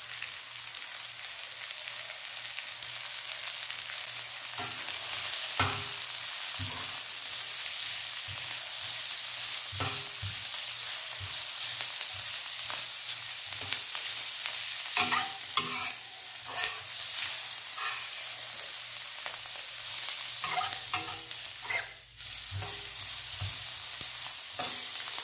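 Sliced shallots, garlic and wood ear mushrooms sizzling in hot oil in a metal wok, stir-fried with a metal spatula that scrapes and clinks against the pan every few seconds.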